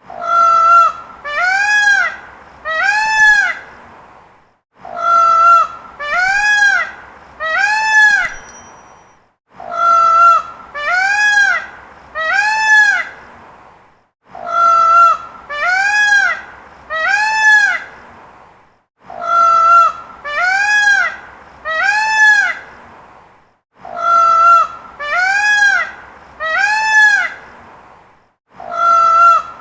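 Peacock calling loudly in sets of three calls, a set about every five seconds. In each set the first call is held at one pitch, and the next two each rise and fall.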